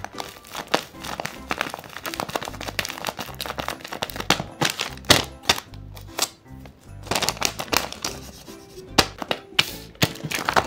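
Handmade paper blind bag being handled and opened: rapid paper crinkling and crackling with sharp clicks and taps, strongest about halfway and again near the end, over light background music.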